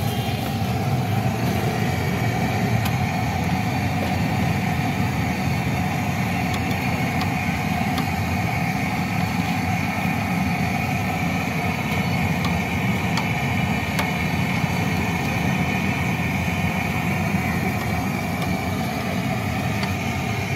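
Steady, engine-like mechanical rumble with a light hiss, broken by a few sharp clicks.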